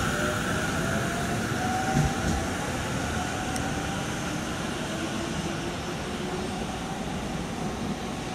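Electric commuter train pulling out and passing close by as it accelerates, wheels rumbling on the rails, with a motor whine that rises gently in pitch. A single knock comes about two seconds in, and the sound slowly fades as the train draws away.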